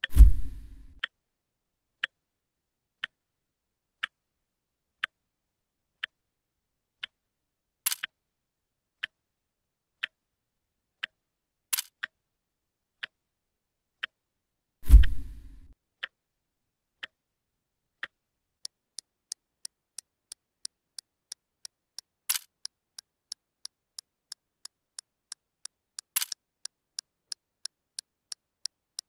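Clock-ticking sound effect, one tick a second, speeding up to about four ticks a second from a little past halfway. A deep thud sounds near the start, again about halfway through, and right at the end; the thuds are the loudest sounds.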